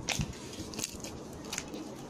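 Slime being squeezed and worked by hand, giving a few short, sharp crackles.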